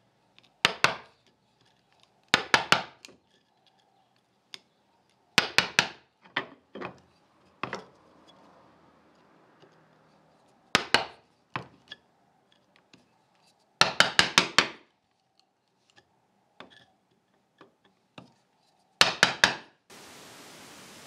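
Wooden mallet striking a narrow chisel to chop a small square mortise in a hardwood panel: sharp taps in short groups of two to five, with pauses between groups.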